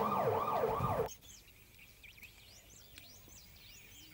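Emergency vehicle siren sweeping up in pitch over and over, about two and a half sweeps a second, cut off suddenly about a second in. Faint bird chirps follow.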